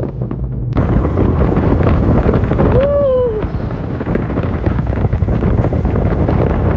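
Strong wind buffeting the microphone while riding an electric skateboard, starting suddenly under a second in. About three seconds in, a short pitched whine rises and falls.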